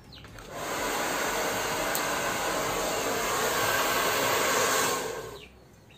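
Handheld hair dryer blowing steadily while hair is blow-dried straight over a round brush. It comes on about half a second in and cuts off near the end.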